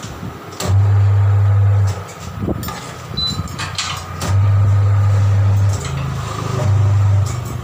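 Tyre-changer turntable motor humming in three short runs, switched on and off as the bead of a 17.5-inch tubeless truck tyre is levered over the rim. Sharp metal clicks and knocks come from the tyre lever against the rim.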